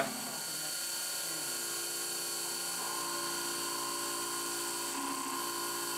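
CNC milling machine running a quarter-inch three-flute cobalt end mill through a metal block: a steady whine with several held tones over a light hiss. One tone shifts about a second and a half in, and another comes in near the three-second mark.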